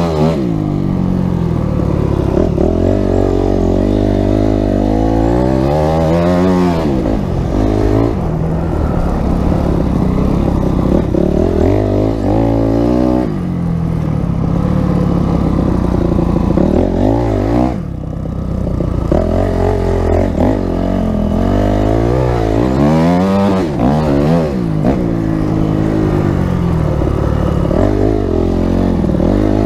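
Christini all-wheel-drive Honda CRF250X's four-stroke single-cylinder engine running under load while ridden through snow, its pitch rising and falling repeatedly with the throttle. The engine briefly drops off about two-thirds of the way through before revving up again.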